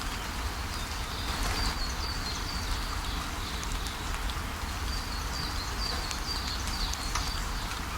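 Waterfall rushing steadily, with a bird singing a run of short, high repeated chirps over it from about two seconds in until near the end.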